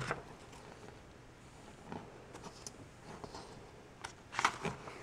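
Paper pages of a booklet rustling as they are turned and pressed flat by hand: a few short, faint rustles, the loudest a little after four seconds in.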